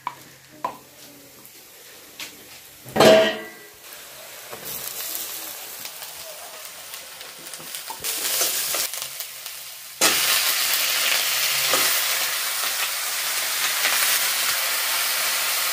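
Onions and spices frying in hot oil in a steel kadai while being stirred, a sizzle that grows gradually. About ten seconds in, the sizzle jumps suddenly much louder as the raw chicken leg pieces go into the hot oil, and it stays loud and steady. A few light knocks come at the start, and there is one short loud noise about three seconds in.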